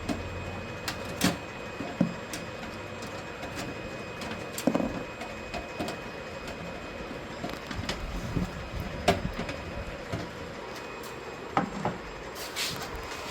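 Irregular clicks and knocks of computer hardware being handled and fitted into a PC case, over a steady faint hum.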